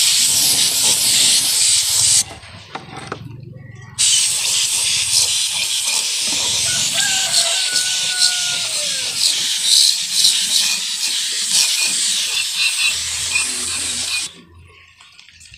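Compressed-air spray gun hissing as it sprays the final clear coat. It sprays briefly, stops for about two seconds, then sprays steadily for about ten seconds and cuts off near the end.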